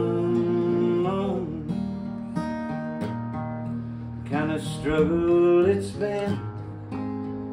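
Acoustic guitar played, with a singing voice in two phrases: one at the start and one about four to six seconds in.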